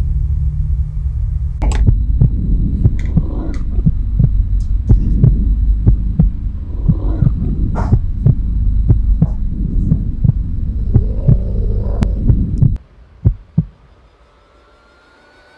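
Horror-film sound design: a loud, low throbbing drone with a heartbeat-like pulse and many irregular sharp knocks and creaks over it. It cuts off suddenly about thirteen seconds in, two more faint knocks follow, then it goes quiet.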